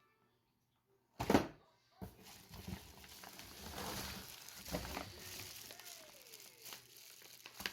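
Plastic food packaging crinkling and rustling as it is handled, starting with a sudden loud rustle just after a second in and carrying on with small crackles.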